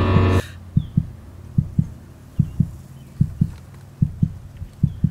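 Music cuts off half a second in, leaving a slow heartbeat: deep paired thumps, lub-dub, about one beat every 0.8 seconds.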